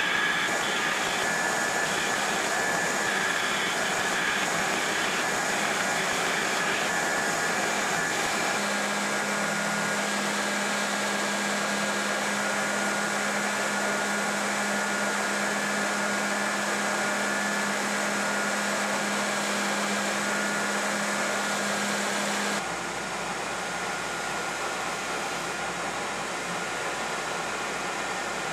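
Belt grinder running with a steel knife blank pressed against its abrasive belt, profiling the blade: a steady rushing hiss with faint steady whines. The sound changes abruptly twice, about a third of the way in and near the end.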